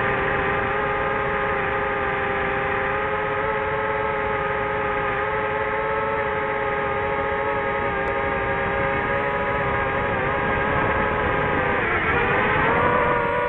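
DJI FPV drone's brushless motors and propellers whining steadily in flight. About twelve seconds in the pitch dips briefly, then climbs to a higher steady whine.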